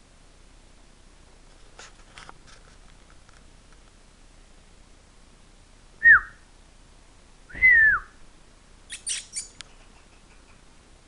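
Two loud whistles, each sliding down in pitch, about a second and a half apart, with a few light clicks before them and a quick cluster of sharp clicks after.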